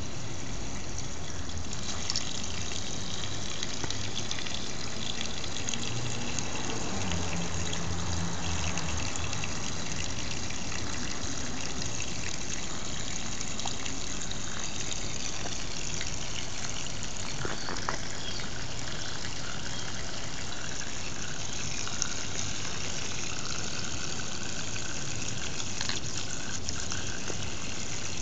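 Water running steadily out of the open end of a garden hose onto the grass, a continuous spraying, splashing hiss.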